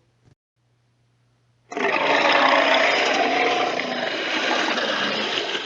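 A dinosaur roar sound effect for a Carcharodontosaurus: after a short pause, one long, harsh roar of about four seconds starts suddenly and fades out near the end.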